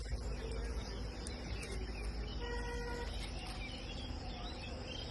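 Outdoor background noise with a low rumble and faint chirps, broken about halfway through by a single short, steady, pitched tone lasting about half a second.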